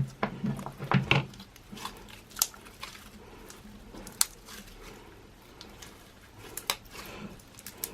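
Crystal slime with Orbeez squished and stretched by hand: a run of wet squelching clicks in the first second or so, then scattered single sharp pops.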